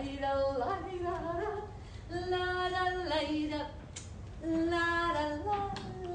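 A woman singing a slow melody, holding long notes with small ornamental bends, with a short break about two-thirds of the way through.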